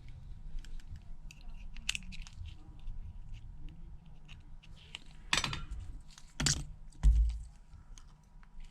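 Small screwdrivers and tiny screws clicking and tapping against the phone's metal brackets and the work surface while screws are being driven back in. Two louder metallic clatters come about five and a half and six and a half seconds in, as of tools or parts set down, followed by a dull thump.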